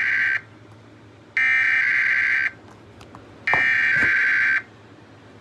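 Emergency Alert System SAME header data tones sounding an automated weekly test. The buzzy data bursts come in even, identical blasts about a second long and a second apart: the tail of one, then two more, followed by quiet.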